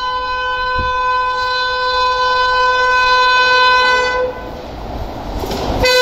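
WAP-7 electric locomotive's horn sounding one long steady blast that cuts off about four seconds in, then the rising rumble of the oncoming train, with the horn starting again near the end.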